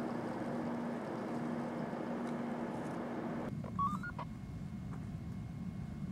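A steady hiss with a low hum cuts off abruptly a little over three seconds in. Just after it comes a quick run of short electronic beeps that step up in pitch, like a two-way radio's chirp, followed by a soft hiss.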